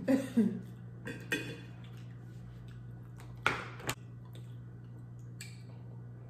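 A few light clicks and knocks of dishes and wine glasses at the table, the loudest a sharp glass clink about three and a half seconds in as two wine glasses are raised together. A steady low hum runs underneath.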